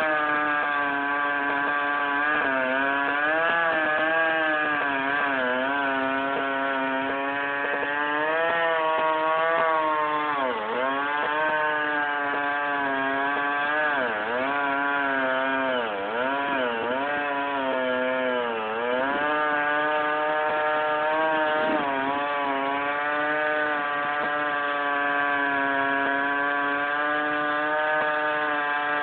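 Two-stroke chainsaw running at high speed and cutting wood. Its pitch sags and recovers several times as the engine bogs under load in the cut. The chain is the one the title calls the dullest chainsaw in the U.S.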